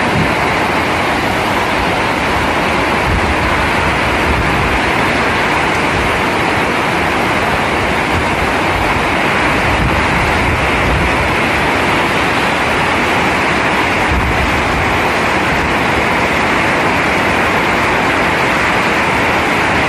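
Heavy rain falling: a loud, steady hiss, with a few low rumbles now and then.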